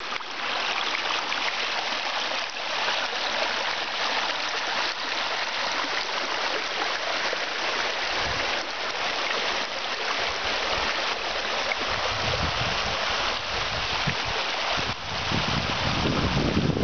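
Water rushing steadily down a stone-lined mill race and wooden flume, an even hiss of fast-flowing water. Low rumbles of wind on the microphone come and go in the second half.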